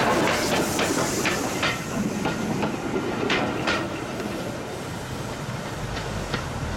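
Steam train behind LNER A4 locomotive Bittern passing close by: the tender and coaches roll past with wheels clicking over rail joints, then the sound fades as the train draws away. Near the end a low engine hum, likely a road vehicle at the crossing, comes in.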